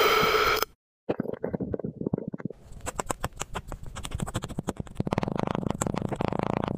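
Wooden dowel pressed down into packed blue sand in a glass vase, crunching and crackling in rapid clicks that grow denser from about three seconds in. It opens with a rising squeaky whine from a metal rod pushing into a pink cylinder, cut off under a second in.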